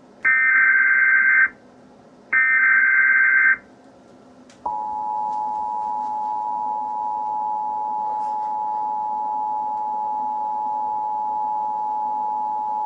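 Emergency Alert System SAME header: two buzzy digital data bursts about a second long, one right after the other. Then, about five seconds in, the EAS two-tone attention signal starts and holds steady, announcing that a warning message is about to be read.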